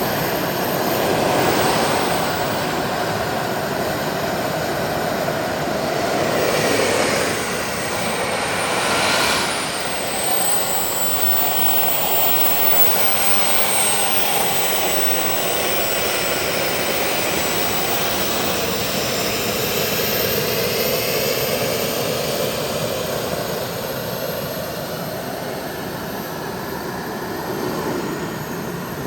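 Model jet turbine engines of a giant RC C-17 running on the ground. They make a steady rushing noise with a thin high whine that glides up and down in pitch as the throttle changes.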